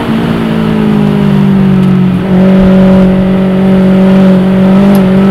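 Rally car engine heard from inside the car at speed. The engine note falls over the first two seconds, then picks up again, louder and holding a steady pitch.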